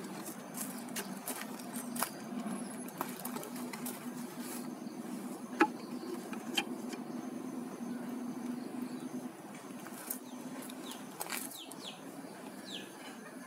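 Honeybees buzzing in a steady low hum that fades after about nine seconds, with sharp wooden clicks and knocks as the hive box lid and wooden top bars are handled, the loudest about halfway through. A bird chirps a few times near the end.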